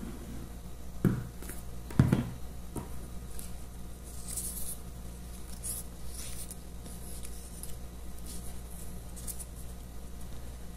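Two sharp knocks on the table about a second apart, then light rustling of paper pattern pieces as they are handled, glued and pressed down onto card.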